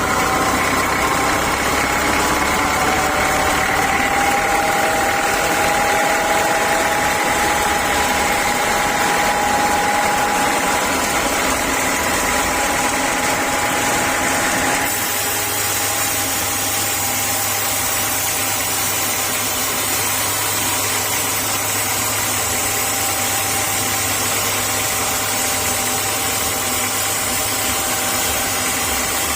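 Sawmill saw machinery running steadily, a continuous mechanical drone with a whine whose pitch drifts slightly; about halfway through the sound changes abruptly to a lower, steadier drone.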